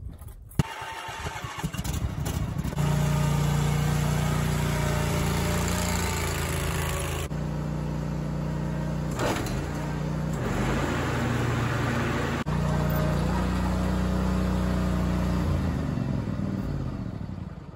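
Zero-turn lawnmower engine starting up as a test run after repairs, catching within the first few seconds, then running steadily with its speed shifting a few times.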